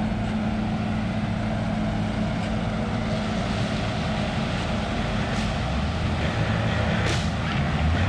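Heavy machinery running steadily: a continuous low mechanical hum with a few faint clicks near the end.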